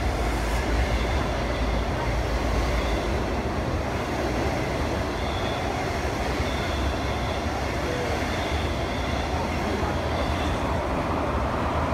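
Intercity passenger train running through a station at speed without stopping: a steady rumble of steel wheels on rail as the carriages pass.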